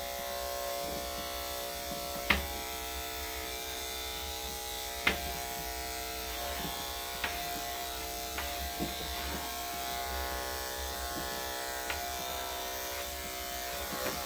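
Electric dog grooming clippers fitted with a number 10 blade, running steadily as they shave small mats from a dog's belly. Their steady motor hum is broken by a few brief sharp clicks, the loudest about two and five seconds in.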